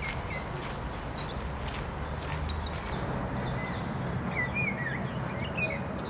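European robin singing: scattered high, thin notes and short twittering phrases, some gliding or curling in pitch. Underneath is a steady low background rumble.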